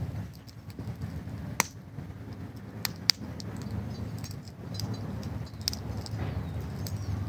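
Newly lit paper-and-kindling fire in a stone fire pit crackling, with sharp pops scattered through it over a steady low rumble.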